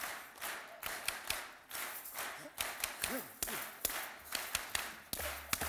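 Crowd tapping drumsticks and clapping in a steady rhythm, about two to three crisp strikes a second, with a brief vocal whoop about three seconds in.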